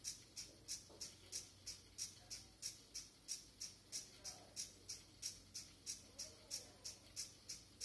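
Faint, even ticking: sharp high clicks about three times a second, keeping a steady rhythm.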